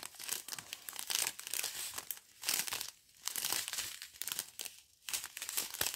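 Small plastic zip bags of round diamond-painting drills crinkling in irregular bursts as they are handled and turned over by hand.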